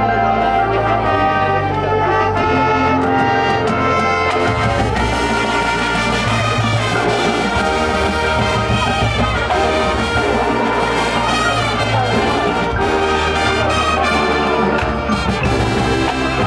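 Marching band playing, led by the brass section (trumpets, mellophones and sousaphones) holding chords, with drum and front-ensemble percussion underneath.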